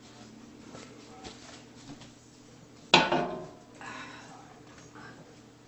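Kitchenware being handled: a single loud clatter about three seconds in that rings briefly, amid faint shuffling and knocking.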